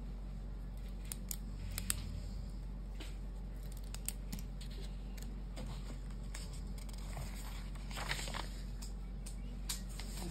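Paperback book being handled, with a page turned about eight seconds in as a soft papery rustle. Scattered small clicks and taps from handling come before it, the sharpest about two seconds in.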